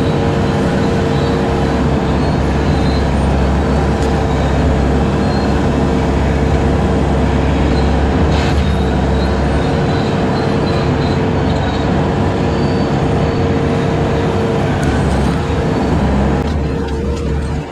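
Bobcat 873 skid steer's diesel engine running hard while its hydraulic brush cutter spins, a steady drone with a constant whine over it. The sound thins slightly near the end.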